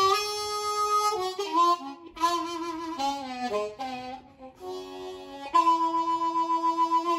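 Solo blues harmonica played with cupped hands: a phrase of held notes, some bent down in pitch, ending on a long held note that pulses rapidly in loudness.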